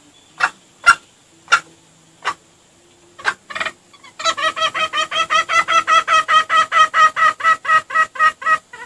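Junglefowl clucking: single sharp clucks spaced about a second apart, then from about four seconds in a rapid, even cackling run of about six clucks a second that lasts to the end.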